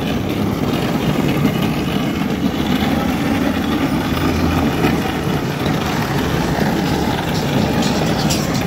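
Steady city street traffic noise: vehicle engines running and idling around an intersection.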